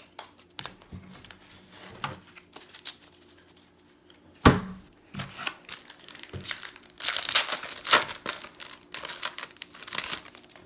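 Foil trading-card pack wrapper being torn open and crinkled, with rustling heaviest in the last few seconds. A single sharp knock comes about four and a half seconds in.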